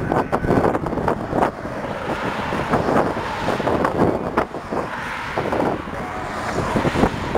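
Wind gusting over the microphone on top of the noise of road traffic, with a pickup truck driving past.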